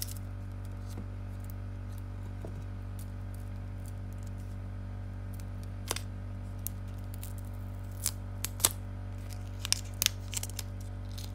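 Scattered light clicks and ticks from handling a stainless-steel Apple Watch with a metal link bracelet while its protective plastic film is peeled off. A quick cluster of clicks comes near the end, over a steady low hum.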